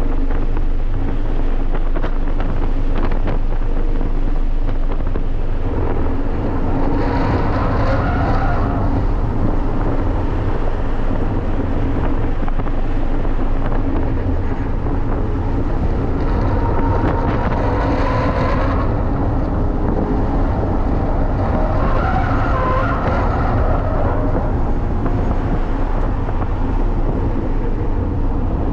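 Toyota GR86's flat-four engine heard from inside the cabin on a track lap, running hard under load. Its note swells and rises three times as the car accelerates, easing off in between.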